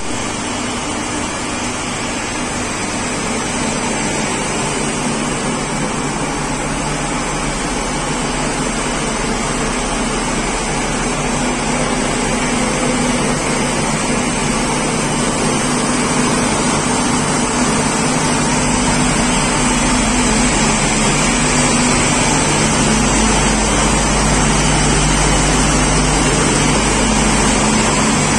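WAG9 electric locomotive's onboard machinery giving a loud, steady hum and whir inside the cab, with a few fixed tones. It grows slightly louder, with a deeper hum near the end, on the way into the machine room.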